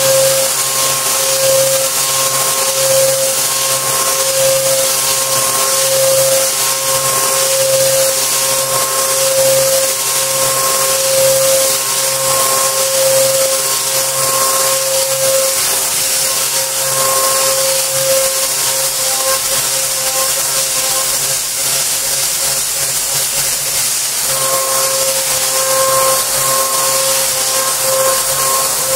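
CNC milling machine end mill cutting a circular pocket into a metal plate by circular interpolation: a steady high-pitched cutting whine over a hiss. The whine weakens for several seconds past the middle and returns near the end.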